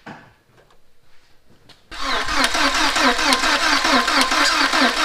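Starter motor cranking the 2000 VW Passat's 1.8-litre turbo four-cylinder, beginning about two seconds in, with a rapid, even rhythm of compression strokes; the engine turns over but does not fire. It is a no-start after a cylinder head and timing belt replacement, and the even cranking sounds like it's got compression.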